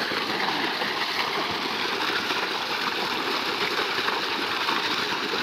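Water gushing steadily from an irrigation pump's outlet pipe and splashing onto the ground.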